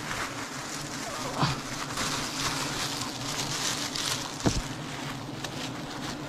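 Swarm of bees buzzing steadily around an exposed honeycomb. Single bees fly close past, their pitch falling, about a second and a half in and again around four and a half seconds. Over this comes the crinkle of a plastic bag being handled.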